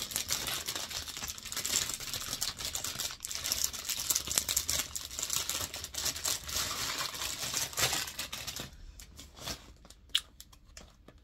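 Packaging being crinkled and torn open by hand, a dense crackling rustle for about nine seconds, then dropping to a few faint rustles and a sharp click near the end.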